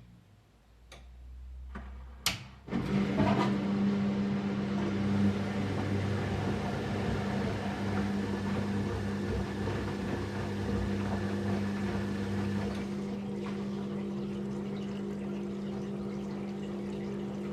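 Candy Aquamatic Aqua 1000 T washing machine: a few sharp clicks, then water rushing steadily into the machine with a steady hum, the fill for the final rinse. The rush eases a little near the end.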